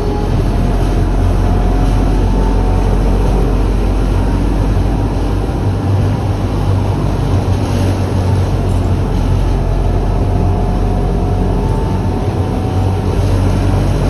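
Končar NT 2200 tram running at speed on its track, a steady loud rumble of wheels on rail and running gear heard from inside the driver's cab, with faint high tones coming and going.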